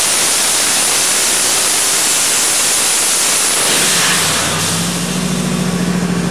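Twin-turbocharged 428 Windsor small-block Ford V8 on an engine dyno at the end of a full-power pull. It is loud at high rpm with a high whine on top; about three and a half seconds in the throttle closes, the pitch falls away, and the engine settles to a lower, steady low-rpm run.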